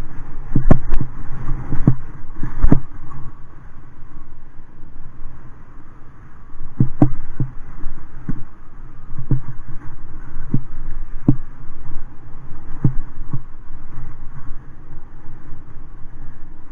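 Wind buffeting the camera microphone during a ride, a steady rumble, broken by sharp knocks and rattles as the camera and its mount jolt over bumps and potholes in the path: a cluster in the first few seconds, then more spread out through the middle.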